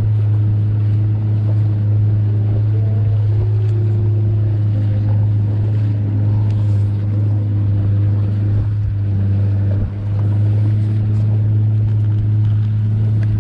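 Boat engine running steadily at an even pitch, a loud low drone that neither rises nor falls.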